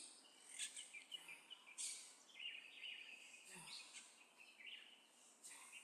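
Faint bird chirps and short calls, scattered and irregular, over a quiet outdoor background.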